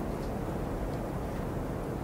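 Blizzard wind blowing steadily: an even, low rush of noise, with a few faint light ticks above it.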